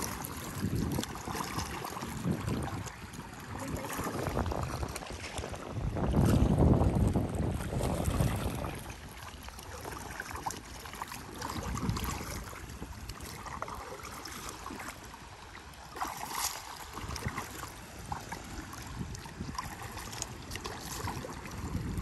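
Paddle strokes and water splashing and lapping against a paddle board as it is paddled along, with wind on the microphone, loudest about six to eight seconds in.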